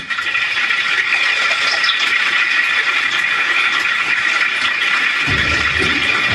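A steady, harsh hiss-like noise from a heavy digital audio effect, with muffled voice-like sounds showing through underneath near the end.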